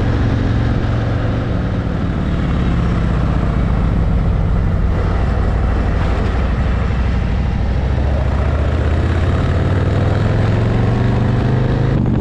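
Harley-Davidson motorcycle's V-twin engine running on the road, its note dipping a couple of seconds in and climbing again near the end as the bike accelerates.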